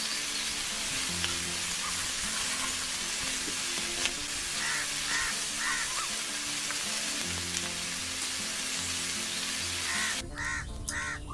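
Fish-roe cutlets deep-frying in hot oil in a kadai: a steady sizzle, with an occasional clink of a slotted spoon turning them. The sizzle cuts off suddenly about ten seconds in.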